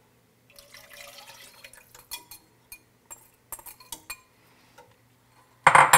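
Chicken broth poured from a measuring cup into a saucepan of roux, with light taps and clinks of the cup and whisk against the pot. A short, loud metallic clank comes near the end.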